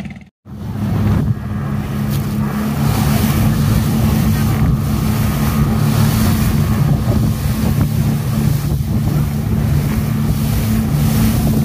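Twin Yamaha 250 hp four-stroke outboard motors running steadily at cruising speed, pushing a speedboat with a full load of passengers. The sound drops out for a moment near the start, then the engines run evenly under wind and water rush.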